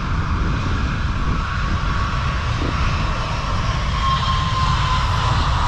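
Jet airliner taking off, its engines at takeoff thrust: a steady roar with a thin whining tone, growing a little louder in the second half.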